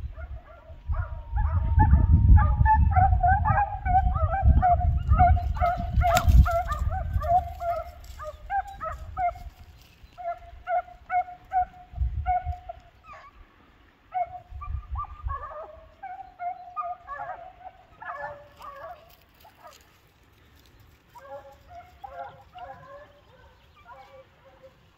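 A pack of hare hounds baying in full chase of a hare, many quick overlapping yelps. The cry thins out about three-quarters of the way through, then picks up again. A low rumble lies under roughly the first third.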